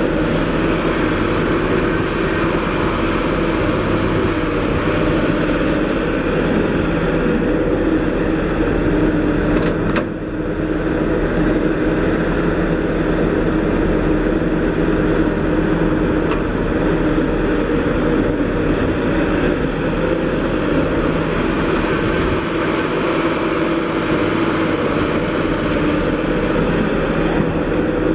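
Kobelco SK350 excavator's diesel engine running steadily under working load, dipping briefly about ten seconds in.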